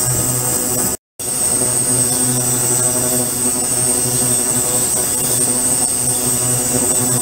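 Ultrasonic cleaning tank running: a steady buzzing hum made of several held tones, with a high whine over it. It drops out to silence for a moment about a second in.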